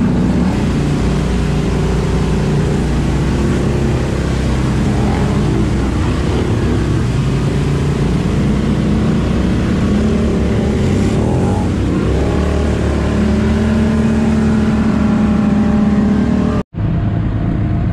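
ATV engine running under throttle while riding, its pitch rising and falling as the rider works the throttle. The sound drops out for an instant near the end.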